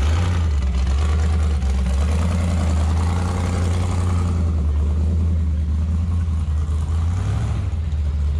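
Road vehicle engine running with a steady low drone, its pitch stepping up slightly near the end.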